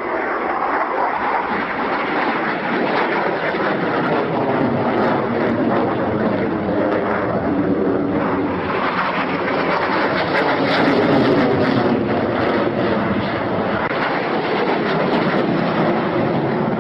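Airplane engine noise, a loud, steady rush that holds throughout.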